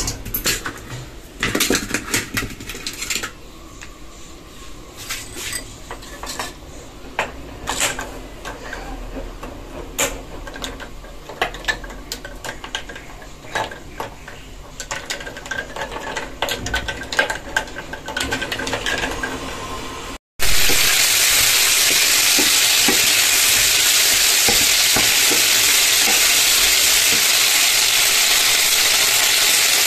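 Ice cubes clicking out of a plastic tray and into a glass, then a spoon stirring and clinking against the glass. About twenty seconds in it cuts to a louder, steady sizzle of chicken pieces frying in a pan.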